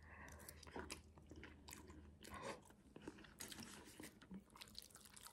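Faint mouth sounds of someone eating instant noodles: quiet chewing with scattered small, wet clicks.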